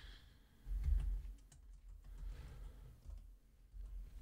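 Computer keyboard typing: scattered light key clicks as a parameter name is typed in, with a low rumble about a second in.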